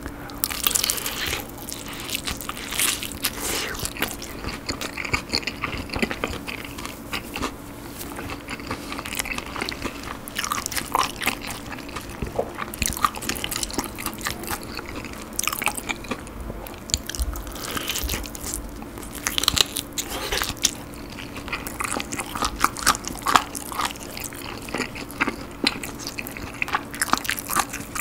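Close-miked biting, crunching and chewing of sauce-coated Korean fried chicken: a dense run of crackles from the batter, in uneven clusters.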